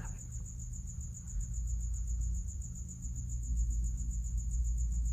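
Steady low electrical hum with a faint, high-pitched whine that pulses rapidly: background noise under the recording, with no distinct bead clicks.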